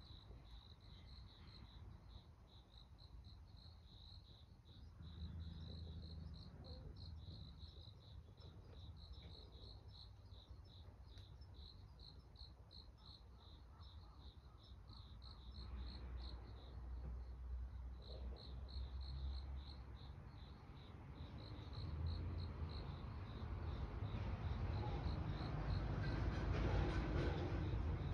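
Crickets chirping: a steady run of short, high chirps, about three a second. A low rumble underneath grows louder near the end.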